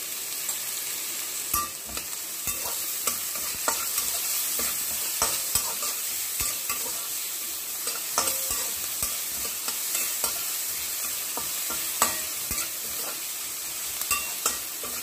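Chopped onions sizzling in hot oil in a stainless steel pan, stirred with a metal spatula that scrapes and clicks against the pan now and then. The onions are being softened, not browned.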